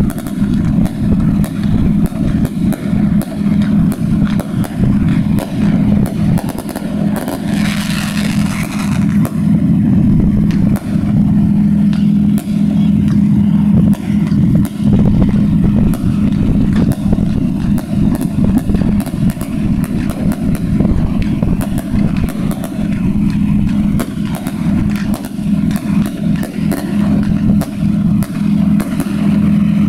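Fireworks display in full barrage: a dense, continuous run of bangs and crackling reports over a steady low hum, with a hissing rush about eight seconds in.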